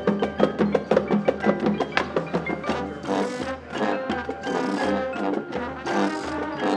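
High school marching band playing, with quick runs of struck notes from the front ensemble's mallet percussion standing out, and held notes filling in about halfway through.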